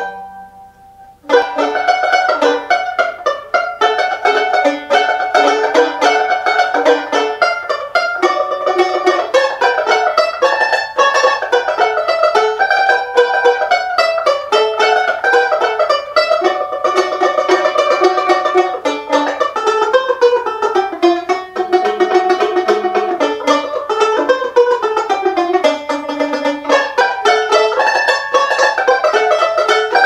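Gibson trapdoor mandolin-banjo, an eight-string banjo-bodied mandolin, played solo: a fast plucked melody. A ringing note fades into a short gap in the first second or so, then the rapid picking resumes and runs on unbroken.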